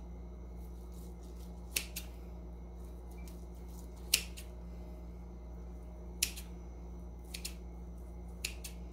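Kitchen shears snipping through roasted turkey skin: three sharp snips about two seconds apart, with a few fainter clicks, over a steady low hum.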